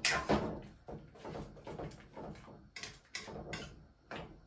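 A metal spoon stirring stew peas in a large pot, knocking and scraping against the pot in a string of irregular clinks, loudest right at the start.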